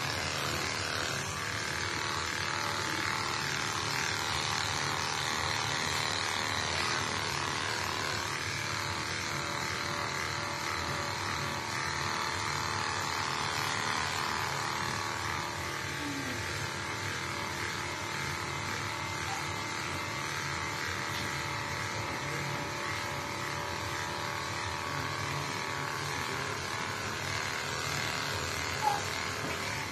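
Electric pet hair clippers running with a steady buzz as they are worked through a cat's long fur. One sharp click near the end.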